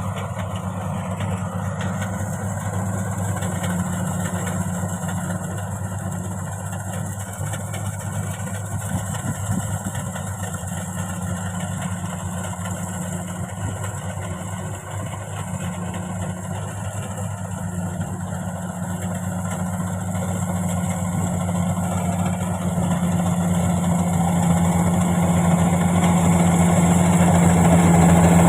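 Rice combine harvester's engine running steadily, with a low hum, growing louder over the last several seconds.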